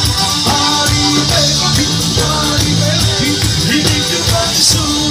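Tarantella folk music: instruments playing at a steady, loud level with a regular beat.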